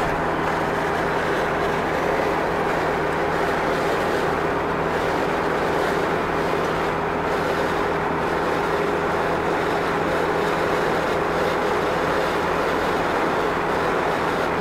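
A vehicle running steadily: an even noise of travel with a constant low hum under it, holding the same level and pitch throughout.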